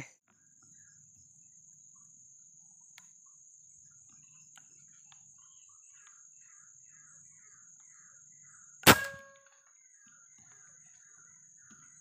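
A single air rifle shot about nine seconds in: a sharp crack with a brief metallic ring. Under it a steady high-pitched insect whine and a run of short chirping calls, about three a second.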